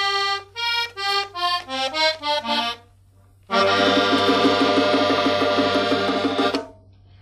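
Solo accordion opening a cumbia: a quick phrase of single notes, a brief pause about three seconds in, then a held, wavering chord for about three seconds that fades away.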